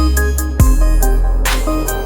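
Electronic background music with synth notes over a heavy bass and beat, with a sharp hit about half a second in.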